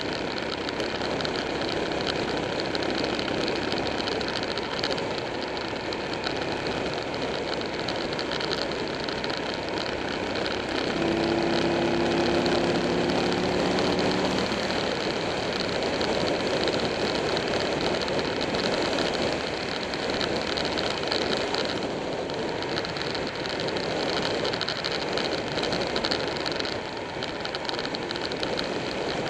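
Motorcycle underway at road speed: the engine runs under a dense rush of wind noise on the bike-mounted camera. For about three seconds near the middle, a steady pitched engine drone stands out and the sound gets a little louder.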